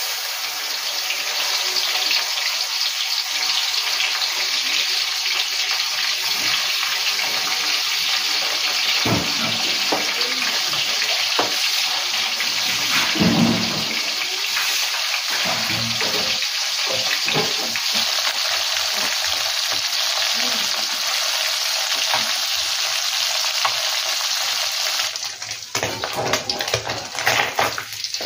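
Small jaer fish deep-frying in hot oil in a steel wok, giving a loud, steady sizzle. In the middle, a metal spatula stirs them with scrapes and knocks against the wok. The sizzle thins out near the end.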